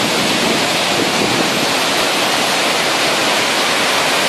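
Tall waterfall pouring close by: a steady, loud rush of falling water.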